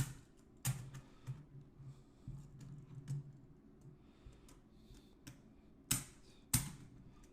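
Silver Franklin half dollars clicking and clinking together as they are counted out and stacked by hand. Sharp single clicks come every half second to a second, with louder pairs near the start and near the end and fainter ones between.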